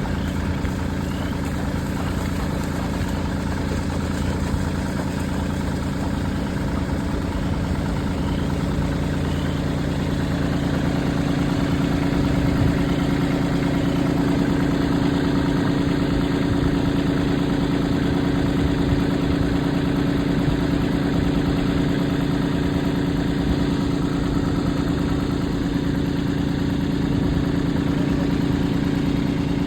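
An engine running steadily at an even speed, getting a little louder about ten seconds in.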